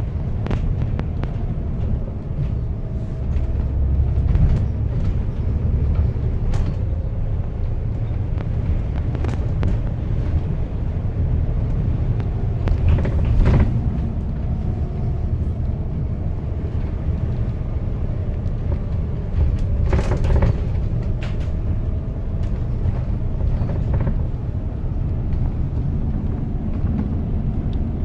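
Strong wind buffeting the microphone: a steady, gusting low rumble, with a couple of brief knocks around the middle.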